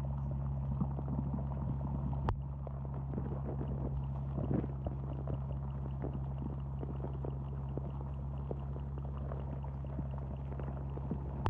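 Muffled underwater sound picked up through a submerged camera's housing: a steady low hum with scattered faint clicks, and one sharper click about two seconds in.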